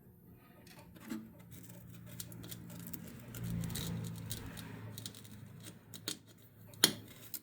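Scattered light metallic clicks and taps from hand tools working on old front-suspension hardware, with one sharp click near the end, over a low steady hum.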